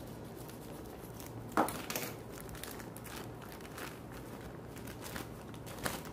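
Plastic courier mailer bag crinkling and rustling as it is cut open with scissors and handled, with a few sharp clicks, the loudest about a second and a half in.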